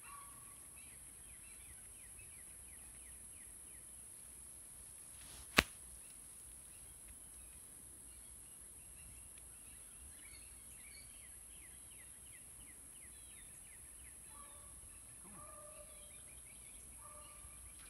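Faint outdoor farm ambience: birds chirping in quick repeated strokes, over a steady high-pitched hiss. A single sharp click about five and a half seconds in is the loudest sound, and short two-note bird calls come a few times near the end.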